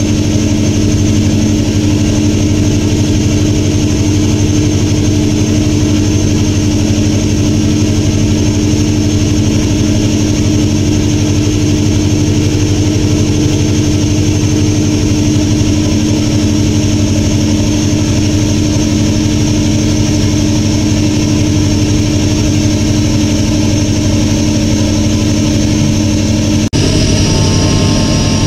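A boat's engine runs at a steady cruising pace, a constant low drone with water and wind noise. About a second before the end there is a brief break, after which the drone continues with a slightly different tone.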